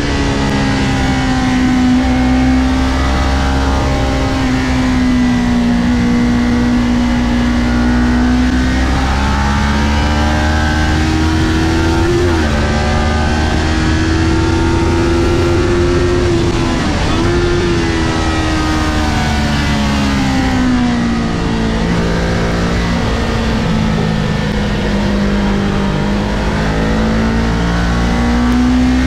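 Kawasaki Ninja 400's parallel-twin engine heard onboard at racing revs, its pitch rising and falling with the track. It climbs through the middle with two brief dips at upshifts, falls off as the bike slows, and climbs again near the end.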